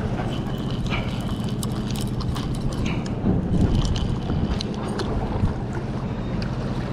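Boat engine running steadily with a low hum, while a conventional saltwater reel is cranked with light mechanical clicking as a fish is reeled up.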